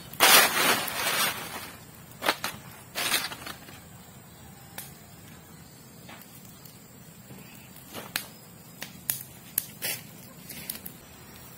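Small fire of dry leaves and twigs: a loud rustle of dry leaves in the first second or so as it is stirred with a stick, then scattered sharp crackles and snaps from the burning twigs.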